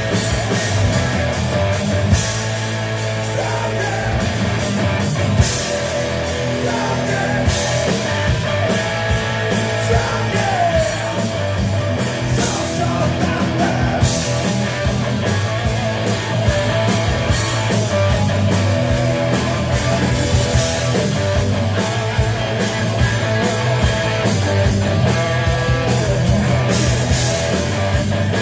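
Live rock band playing loud, with distorted electric guitars, bass and pounding drums, and some singing.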